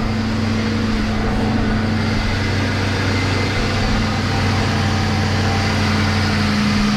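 2002 Lincoln LS's 3.9-litre V8 idling steadily.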